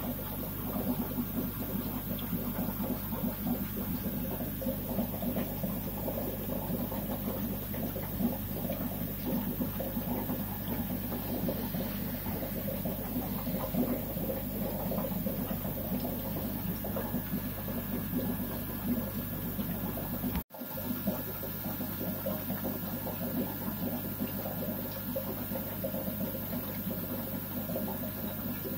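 Aquarium filtration running: a steady hum under a constant, rustling rush of moving water. The sound drops out for a moment about twenty seconds in.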